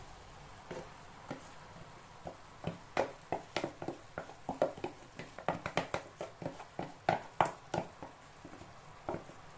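Wooden spoon knocking and scraping against a plastic tub as callaloo is tapped out of it into a steel pot: an irregular run of sharp taps, several a second, starting about three seconds in.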